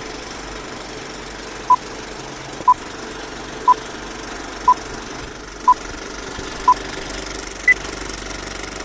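Old-film countdown leader sound effect: a steady, rattling film-projector whir with short beeps once a second, six at the same pitch and then a seventh, higher beep.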